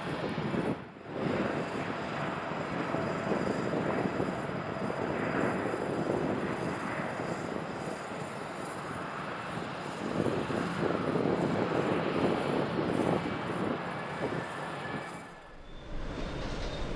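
Twin GEnx-1B turbofans of a Boeing 787 Dreamliner at takeoff thrust: a loud, steady jet roar through the takeoff roll and climb-out, with a brief drop about a second in. It falls away near the end.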